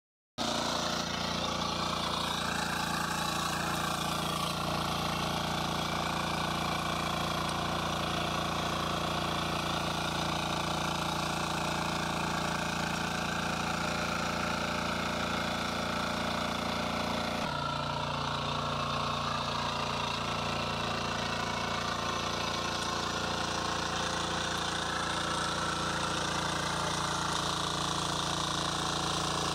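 Shrachi power weeder's engine running steadily as the machine is walked along a furrow between crop rows, with a slight shift in its tone a little over halfway through.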